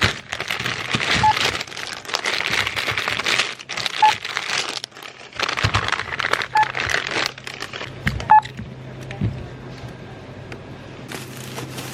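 Short electronic beeps from a self-checkout machine, four of them spread a few seconds apart, over plastic bags rustling and crinkling while items are handled.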